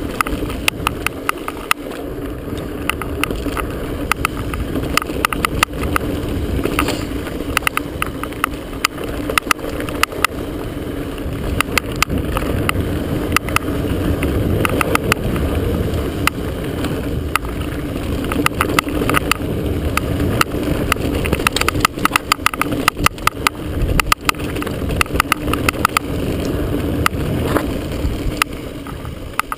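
Mountain bike descending a dirt singletrack at speed: a steady rumble of wind and tyres on dirt, with many sharp clicks and rattles from the chest-mounted camera banging on its mount.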